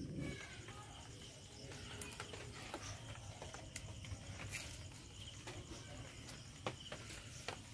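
Faint small clicks and rustles of fresh jute leaves being snapped and stripped of their midribs by hand, with leaves dropping into steel bowls. Crickets chirr steadily in the background.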